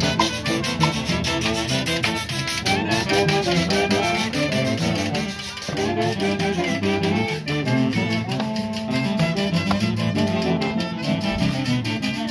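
Folk orchestra playing a lively brass-led tune over a steady, quick beat.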